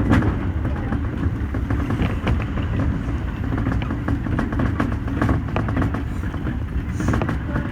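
Toei Shinjuku Line train running, heard from inside the car: a steady low rumble of wheels on rail with frequent short clicks and knocks.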